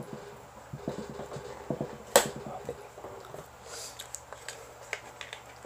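Light handling clicks and taps as a speaker's circuit board and its wire are moved about on a wooden workbench, with one sharper click about two seconds in.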